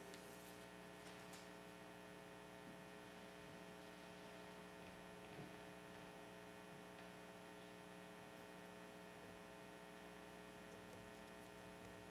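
Near silence: a faint, steady electrical hum made of several held tones.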